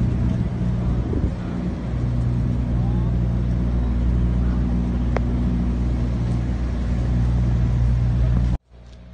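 A vehicle engine idling, a steady low hum, cutting off suddenly near the end.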